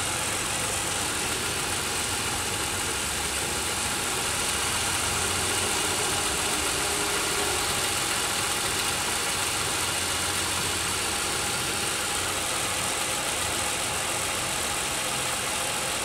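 2001 Pontiac Aztek GT's 3.4-litre (3400) V6 idling steadily at its normal warm idle speed, below 1,000 rpm, while misfiring and shaking on its mounts. The owner hopes a spark plug wire is the cause.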